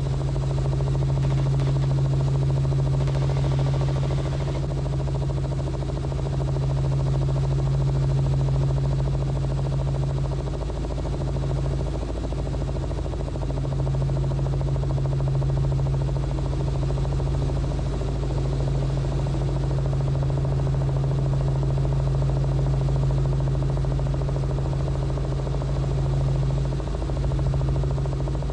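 Robinson R44 helicopter in flight: its piston engine and rotors running as a steady low drone with a strong hum. A short burst of hiss comes in about three seconds in.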